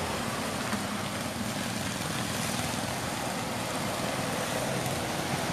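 Steady wash of road traffic on a wet road, an even hiss with no distinct engine note standing out.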